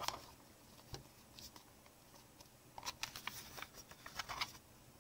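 Faint handling noise of a small plastic digital pocket scale: light clicks and rubbing of the plastic case as it is turned over in the hands and its hinged lid opened, with a single click about a second in and a busier run of clicks between about three and four and a half seconds.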